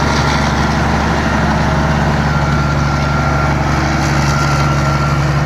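Combine harvester's diesel engine running at a steady speed, a constant low drone with no changes in pitch or level.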